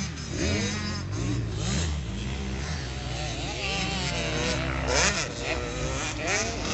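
Small 65 cc two-stroke motocross bike engines revving up and down as the riders go around the dirt track, over a steady low engine drone. Quick rising revs come about five seconds in and again near the end.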